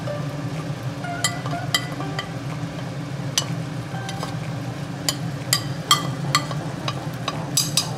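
A metal spoon clinking and scraping against a plastic plate as garam masala is tipped into a pot of curry, as a dozen or so sharp clicks, more of them in the second half, over a steady low hum.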